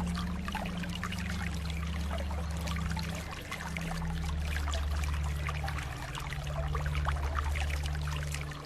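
Trickling, flowing stream water over a low, sustained soft-music pad whose pitch changes every few seconds.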